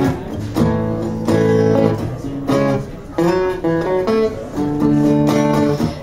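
Acoustic guitar strumming chords in a loose rhythm, each chord left ringing before the next strum.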